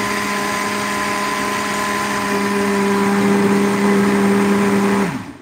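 Countertop blender motor running at a steady speed, then winding down with a falling pitch and stopping near the end.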